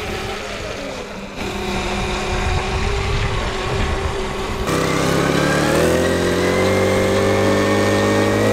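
A mini bike's small engine running as it is ridden. About halfway through the sound changes abruptly to a steadier, louder engine note whose pitch rises slightly.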